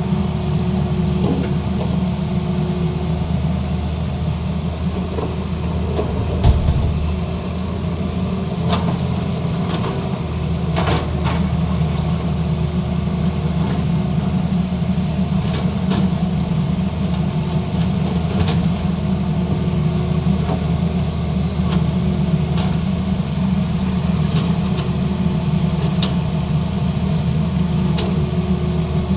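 Tata Hitachi Zaxis crawler excavator's diesel engine running steadily while it digs rock and gravel, with scattered clanks and knocks of the bucket on stones and one dull thump about six seconds in.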